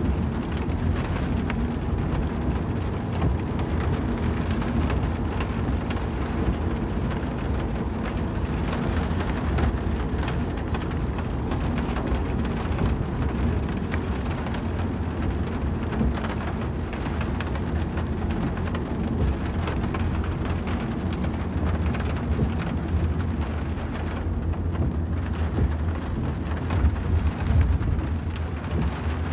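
Rain pattering on a moving car's windshield and roof, heard from inside the car over a steady low road rumble.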